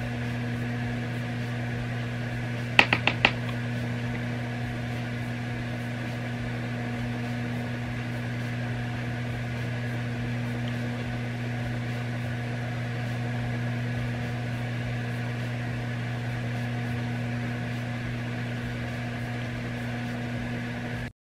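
Steady low electrical hum in a small room, with four quick light clicks close together about three seconds in.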